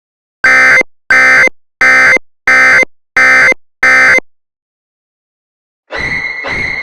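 An automated distress beacon sends six identical harsh electronic beeps, about three every two seconds, then falls silent. Near the end a steady high tone with a pulsing beat begins.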